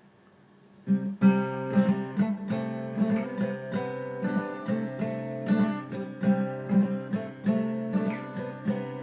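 Acoustic guitar intro to a country song: strummed chords in a steady rhythm, starting about a second in.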